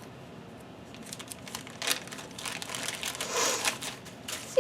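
Small plastic bag crinkling and rustling as it is handled and worked open, starting about a second in.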